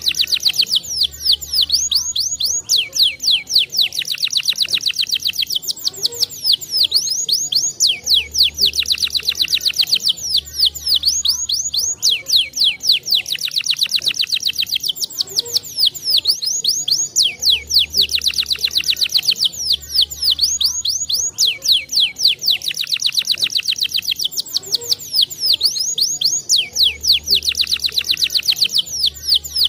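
Domestic canary singing: long, very fast trills and rolls, high-pitched and unbroken, with the same song passage repeating about every nine seconds.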